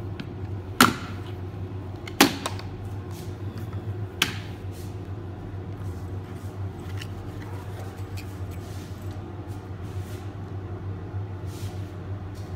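Three sharp plastic clicks in the first four seconds as a Glock hard plastic pistol case is unlatched and its lid swung open, followed by faint handling sounds as the pistol is lifted from the foam, over a steady low hum.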